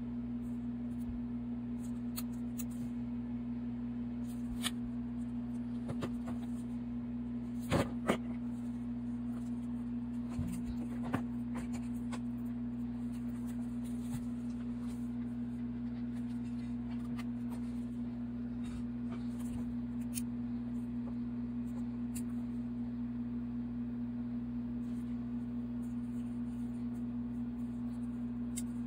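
Steady low electrical hum, with scattered small clicks and taps from handling, two louder ones about eight seconds in.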